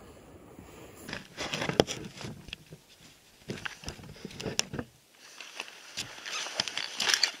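Irregular crunching, rustling and clicks close to the microphone, the sound of movement and gear handling, with a short lull about five seconds in.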